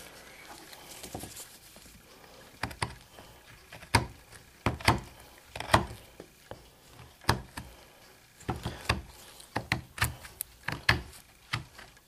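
Hoof knife scraping and paring the horn of a horse's hoof in a series of short, sharp, irregular strokes, coming quicker in the second half, cleaning loose flaky horn out of the seat of corn.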